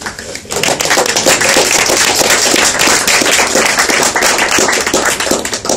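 Audience applauding: many hands clapping, starting about half a second in and thinning out near the end.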